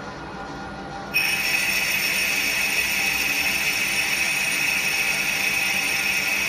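CNC lathe running with a steady hum, then about a second in a loud, steady hiss with a high whine starts suddenly and holds as the machine begins its working cycle.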